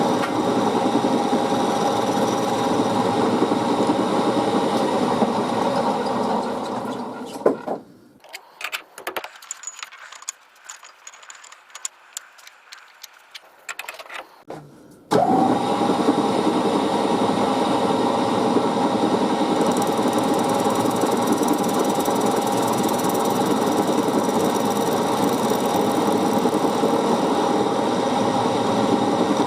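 Small machine tool running while brass bar stock is machined into an air fitting. It stops for about seven seconds, leaving small clicks and taps of handling, then starts again abruptly and runs steadily.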